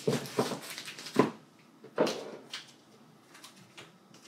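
Plastic comic-book bags and cardboard backing boards being handled: a run of short crinkles and rustles in the first two and a half seconds, then fainter handling noise.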